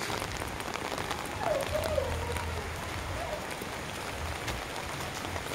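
Steady rain falling, with many small raindrop ticks pattering on an umbrella held overhead.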